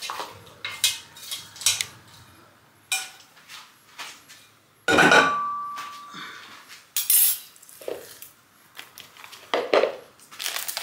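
Kitchen pot and utensils clattering: scattered knocks and scrapes, with one loud clank about five seconds in that rings briefly.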